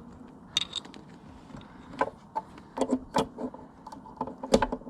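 Scattered clicks and knocks of an LED headlight bulb being handled and pushed into a motorcycle headlight socket, about half a dozen, with the loudest knock near the end.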